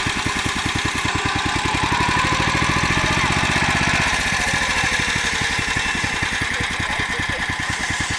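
Motor Sich MB-4.05 walk-behind tractor's petrol engine running with an even, rapid firing beat. It grows a little louder for a couple of seconds, then eases about four seconds in.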